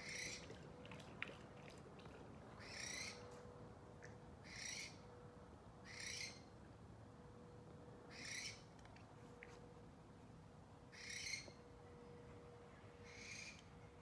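An owl giving seven harsh, hissing screeches, each under half a second long, repeated about every two seconds.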